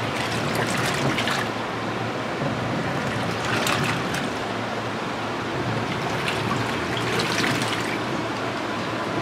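Walton top-load washing machine in its rinse cycle: water swishing and trickling inside the drum, swelling every few seconds as the wash moves it, over a low steady hum.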